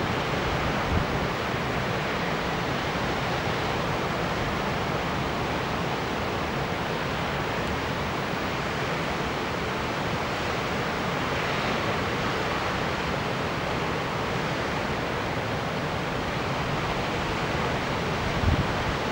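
Steady, even outdoor rushing noise with no bird calls, and a couple of brief low bumps, one about a second in and one near the end.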